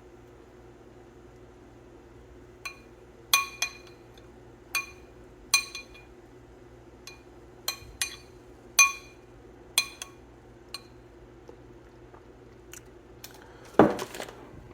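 A spoon clinking against a dish about a dozen times at an irregular pace, each tap ringing briefly, as sauce is spooned out. A short rustle comes near the end.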